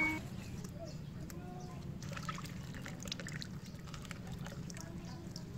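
Water trickling and splashing in a plastic basin as hands rinse lettuce leaves and red chillies, with small drips and splashes clustering about halfway through.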